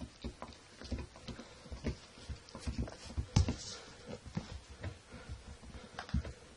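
Sussex Spaniel puppy scrabbling and rolling about on a rug and floor in hyperactive play, making irregular soft thumps and patters. The loudest knock comes about three and a half seconds in.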